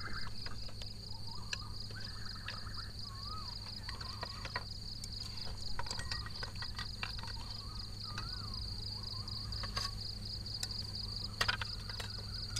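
A steady, high-pitched insect chorus, with scattered clinks and knocks of ceramic bowls, spoons and a metal pot being gathered from a table, a cluster of them near the end.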